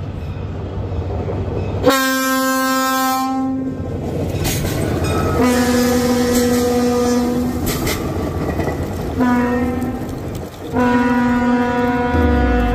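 Budd RDC rail diesel car blowing its horn in the long-long-short-long grade-crossing pattern as it passes close by. The horn is a steady multi-tone blast, and the rumble of the moving train runs underneath.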